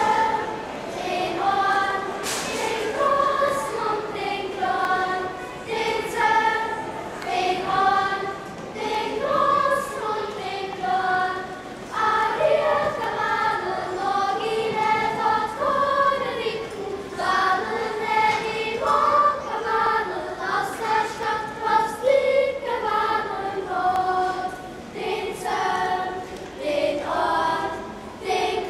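A children's choir singing a song together, the melody moving from one held note to the next every half second or so.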